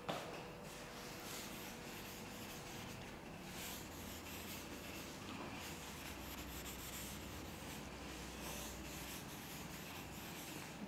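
Blackboard duster wiping chalk off a chalkboard in repeated, uneven rubbing strokes, a faint swishing scrub. A short knock sounds right at the start.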